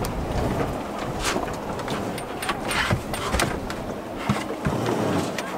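Stern anchor line being hauled and adjusted at a sailboat's stern: scattered knocks and rattles of rope and fittings over a steady low rumble of wind on the microphone.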